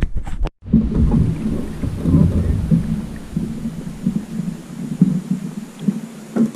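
Loud, irregular rumble of wind buffeting the camera's microphone on a kayak at sea, with water sloshing against the hull; the sound cuts out briefly about half a second in.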